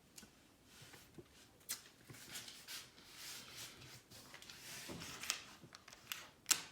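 Small magnetic stud marker rubbing and sliding over a wall, with scattered light clicks and one sharper click near the end.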